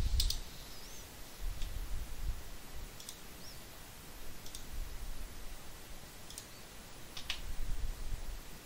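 Computer mouse clicking: single sharp clicks about a second or two apart, over a faint low rumble.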